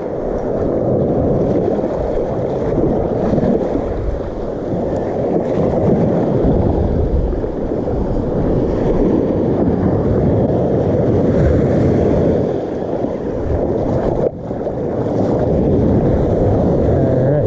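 Steady wind noise on the microphone mixed with small surf waves washing onto the beach, with a brief drop about fourteen seconds in.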